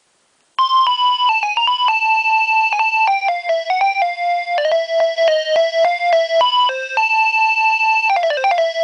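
Nokia 2300 mobile phone ringtone playing: a single electronic melody line of quick, stepping notes that starts about half a second in.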